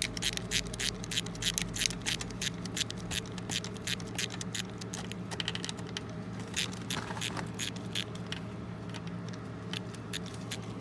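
Rapid metallic clicking, several clicks a second, of a ratchet wrench working at the transmission oil drain bolt under the shifter of a dirt bike, over a steady low hum.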